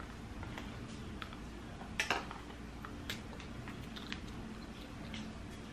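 Scattered clicks and crackles of a stiff plastic honeycomb package as its peel-off film is picked at and pulled, the loudest about two seconds in.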